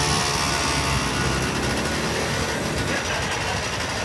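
Motor scooter engine running as it rides along, with wind rushing over the microphone.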